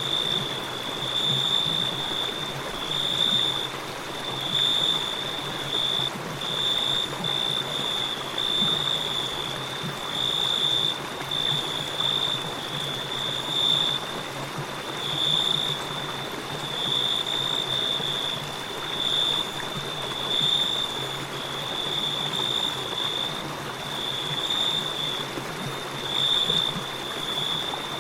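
Crickets chirping in steady, pulsing high-pitched trills over the continuous rush of river water.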